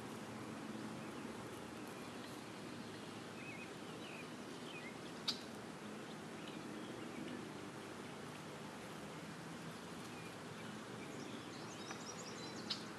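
Steady background hiss of open-air ambience with scattered short, faint bird chirps, including a quick run of chirps near the end. Two sharp clicks, about five seconds in and near the end, are the loudest sounds.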